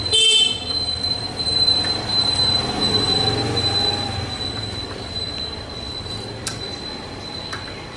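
Bicycle front disc brake rotor rubbing against the pads as the wheel turns during caliper alignment: a loud high metallic squeal just after the start, then a thin steady high-pitched ring, with a couple of light clicks near the end.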